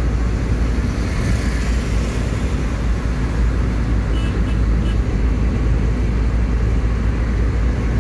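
Steady low wind rumble on the microphone, with road and engine noise from travelling along a highway among cars and scooters.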